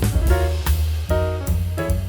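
Background music: an upbeat jazzy track with a steady drum beat, bass and melody notes.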